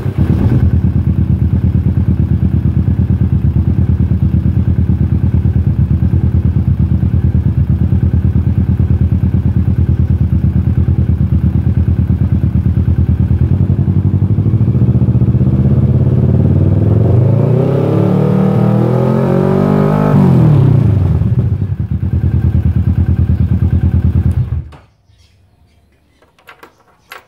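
2017 Kawasaki Vulcan S 650's parallel-twin engine breathing through a cheap $50 aftermarket exhaust, idling in neutral. About halfway through it is revved up slowly over several seconds, then drops quickly back to idle, and it is switched off a few seconds before the end.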